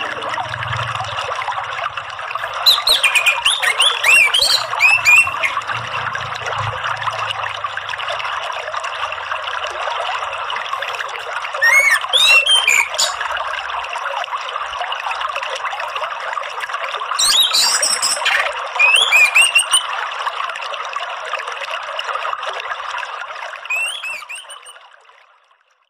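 Steady trickling, running water with a songbird chirping over it in short bursts several times; the whole sound fades out near the end.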